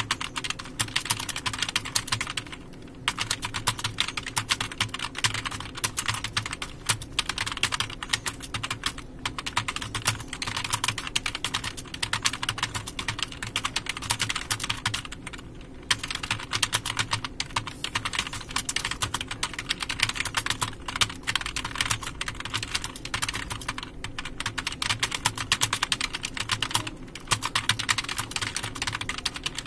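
Fast typing on a computer keyboard: a dense run of key clicks broken by a few short pauses, over a low steady hum.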